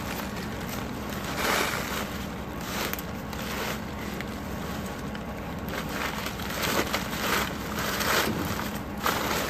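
Blue poly tarp and the rolled-up mat of a truck bed unloader rustling and crinkling as they are pulled and handled, in several louder swells.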